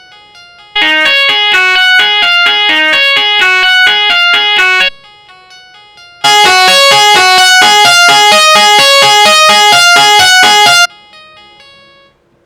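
Electric guitar playing a quick run of single notes through a fuzz effect, the tone thick with overtones. It plays in two loud passages, about a second in and again after a short break at about six seconds, then dies away.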